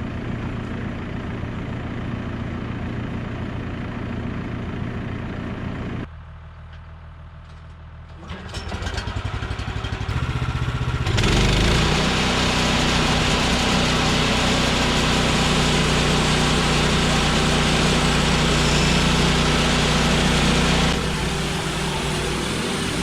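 Woodland Mills HM126 sawmill's petrol engine running steadily, then dropping suddenly to a quiet low idle about six seconds in. It revs back up and runs loud and noisy at full throttle for about ten seconds, then eases off near the end.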